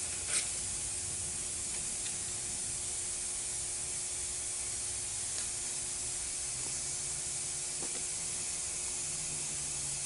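Steady hiss, with a few light clicks as the metal valve-body separator plate and its gasket are handled.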